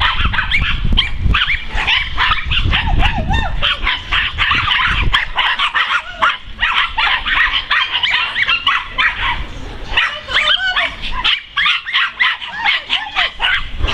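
A pack of small dogs barking and yapping over one another, a dense run of short high yips with no break, easing only briefly about eleven seconds in.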